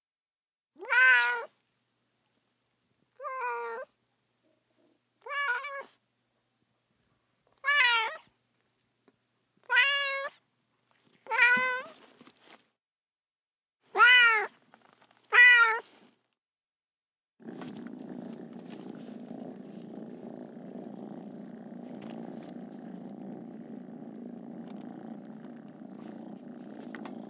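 Domestic cat meowing eight times, each meow separate and rising then falling, about two seconds apart. About two-thirds of the way in, the meows stop and a steady, continuous cat purr takes over.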